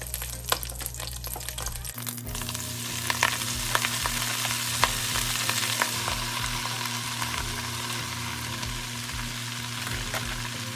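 Chopped collard and broccoli greens sizzling in hot bacon grease in a frying pan as handfuls are added, with scattered crackles and pops. The sizzle gets louder about two seconds in. It is the sign that the pan is good and hot.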